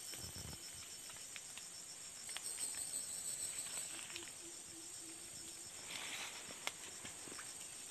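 Faint tropical forest insect chorus: a steady high buzz over a fast, evenly pulsing trill. A low, evenly pulsed call joins for about two seconds midway, with scattered small clicks and rustles.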